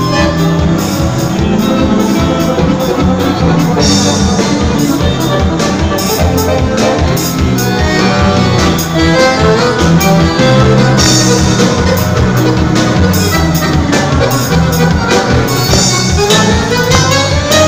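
Piano accordion playing an improvised gaúcho dance tune live with a band, over a steady beat, with a rising run near the end.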